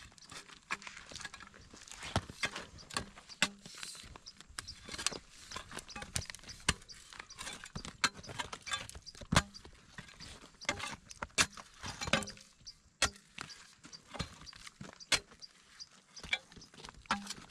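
Metal spade chopping into and prying up dry, cracked pond-bed mud: an irregular series of sharp knocks and scrapes as the blade strikes the baked clay and clods break loose.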